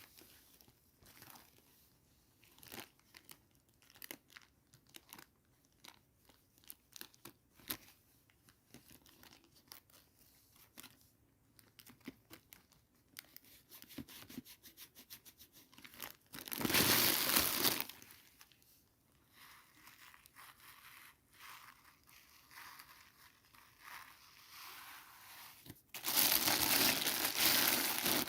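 Doll-set packaging being handled: many small crinkles and clicks of plastic and cardboard, with two louder tearing sounds, one about seventeen seconds in and a longer one near the end.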